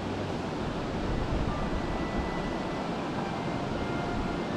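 Steady rushing ambience of wind on the microphone and river water, with faint high held notes coming and going over it.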